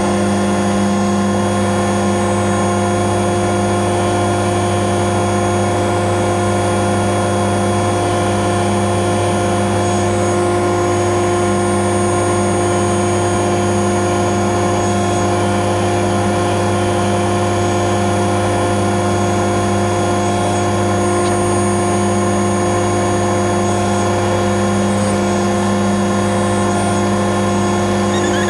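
Airbus H125 helicopter's single turboshaft engine and rotors running at a steady, unchanging pitch, making a loud constant hum made of several steady tones.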